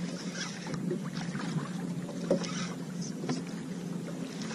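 Choppy sea water splashing and lapping against a fishing kayak's hull, with scattered small clicks and knocks. A steady low hum runs underneath.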